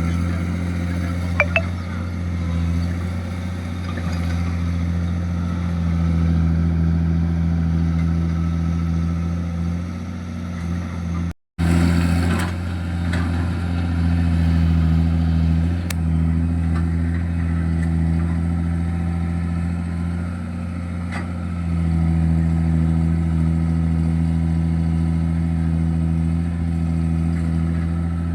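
Diesel engine of a JCB earthmoving machine running steadily with a low, even drone, cutting out for an instant about eleven seconds in.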